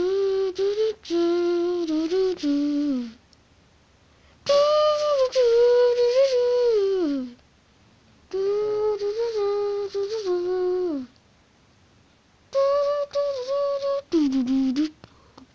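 A voice humming a slow wordless tune in four phrases of about three seconds each, with short pauses between them. The notes are held and slide down at the end of each phrase.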